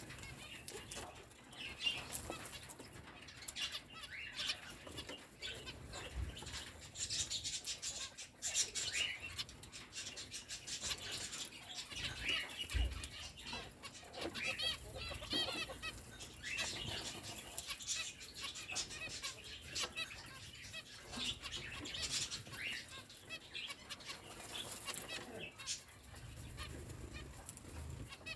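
Small aviary finches chirping and calling over and over with short, high notes, a quick warbling run of notes near the middle, and brief wing flutters as birds fly between perches.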